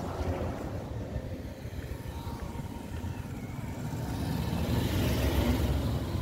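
Road traffic on a city street: a steady low rumble of vehicle engines and tyres, swelling as a vehicle passes close about five seconds in.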